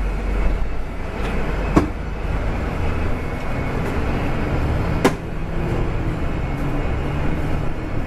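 A BRT bus running, heard from inside its cabin: a steady low engine and road rumble. Two sharp knocks come about two seconds in and again about five seconds in.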